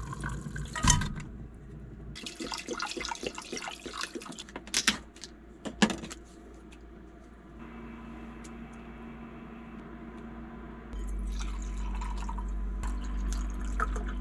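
Water running from a tap into a small sink and splashing, with sharp knocks of things being handled, the loudest about one, five and six seconds in. A steady low hum comes in for the last few seconds.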